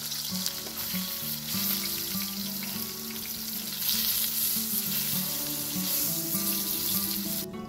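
Eggplant slices sizzling in hot oil in a wide shallow pan, a steady frying hiss that cuts off suddenly near the end, with background music underneath.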